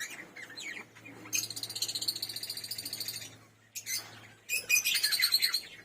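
Caged aviary birds chirping in rapid, high-pitched twitters, in two bouts: one starting about a second and a half in and lasting about two seconds, and another about four and a half seconds in.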